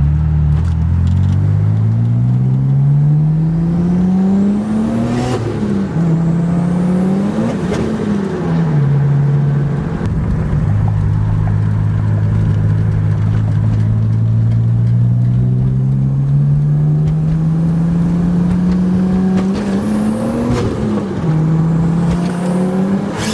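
Turbocharged BMW E30 engine accelerating hard through the gears. The pitch climbs steadily and drops sharply at each gear change, several times over.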